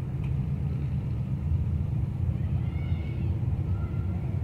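A steady low rumble, with a faint high-pitched call about three seconds in.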